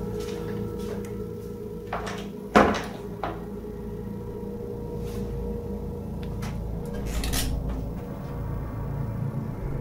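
A door banging shut sharply about two and a half seconds in, with a few softer clicks and knocks of handling and steps around it, over a steady low drone.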